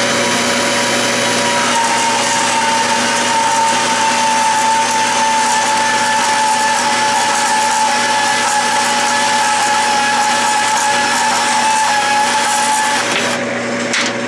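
Milwaukee M12 mini band saw running and cutting dry through a 1/2-inch cold-rolled steel rod that is turning in a lathe, with the lathe's steady hum underneath. The saw's pitch sags slightly under load. The saw stops about a second before the end, leaving the lathe running.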